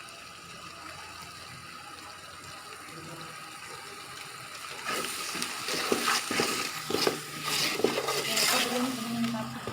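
Water being poured and splashing into a cooking pot. It is quiet and steady at first, then louder and uneven with a few knocks from about halfway in.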